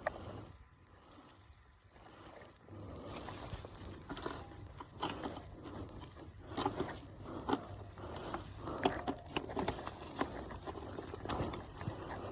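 Scattered metal clicks, knocks and scrapes of hands and tools working on a motorcycle's loose drive chain. They start about three seconds in, over a faint steady low hum.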